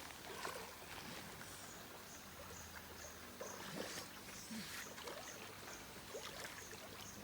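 Jungle ambience: a high, short chirp repeated about two or three times a second from a small animal in the forest, over faint scattered rustles and clicks.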